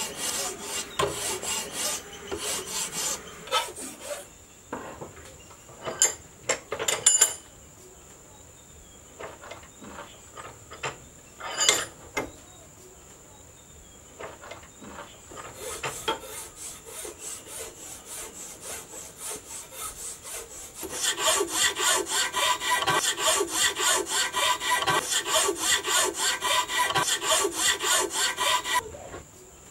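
Hand file rasping back and forth on the wooden handle of a knife clamped in a vise, in runs of rhythmic strokes, loudest and densest near the end, with a few sharp knocks in a pause between runs. A steady high insect drone runs underneath.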